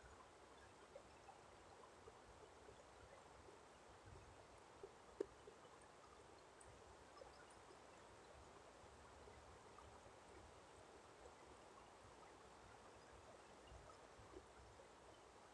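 Near silence: faint outdoor ambience with a few soft brief ticks, one a little louder about five seconds in.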